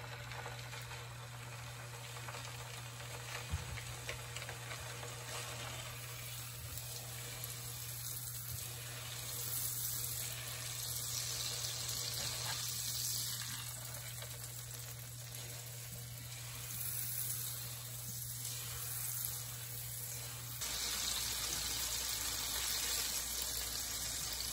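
Beef steak sizzling as it sears in melted butter in a frying pan, a steady frying crackle. The sizzle gets a little louder near the end.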